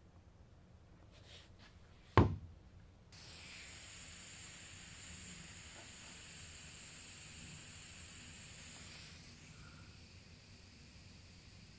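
One sharp knock of a mallet striking wood about two seconds in. Then a steady hiss of compressed air from a pneumatic nailer's air line for about six seconds, dropping to a fainter hiss near the end.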